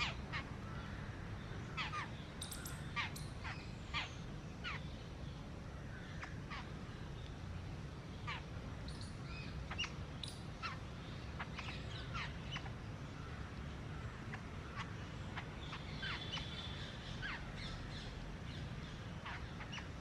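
Babblers and palm squirrels feeding together, giving short, sharp chirps and harsh calls scattered throughout, with a brief run of buzzy calls about two-thirds of the way in, over a steady low background rumble.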